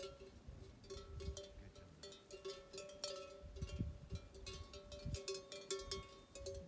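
Bells hung on grazing sheep clinking and ringing irregularly, the same few notes coming back again and again as the flock moves.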